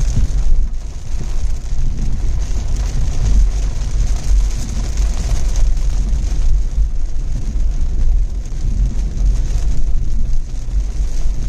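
Car driving in the rain: a steady low rumble of engine and tyres on wet road under the hiss of rain.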